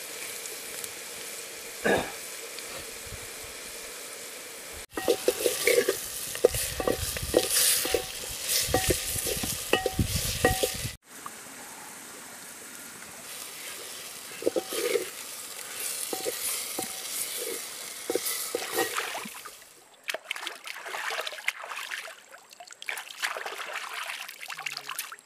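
Food frying and sizzling in a clay pot while a wooden spatula stirs it, scraping and knocking against the pot. The sound is loudest and busiest from about five to eleven seconds in, then drops to a steadier sizzle with scattered clicks.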